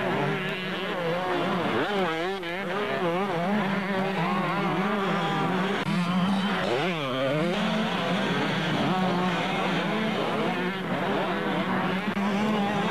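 Several two-stroke motocross bikes revving as they climb and corner, their engine notes repeatedly rising and falling over a steady drone.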